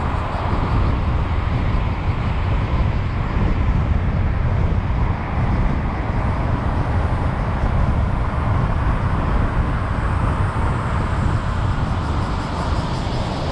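A car driving along a road: steady tyre and road noise with a low engine rumble, heard from a camera mounted in the car.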